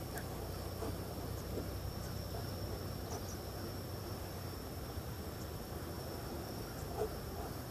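A steady, high-pitched insect trill like a cricket's runs on unbroken over a low rumble of wind on the microphone, with a few faint ticks.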